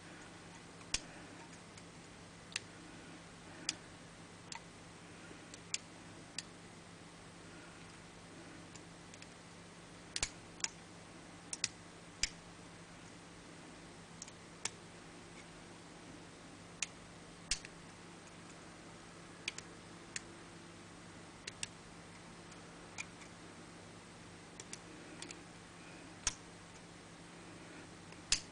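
Faint, irregular metallic clicks of a lever pick and tension wire working the levers inside a Squire four-lever padlock, about one click every second or two, as the levers are lifted and set one by one.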